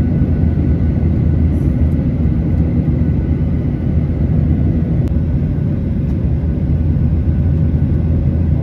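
Airliner cabin noise heard from a window seat in flight: the steady low rumble of the jet engines and rushing air, with a faint steady whine above it.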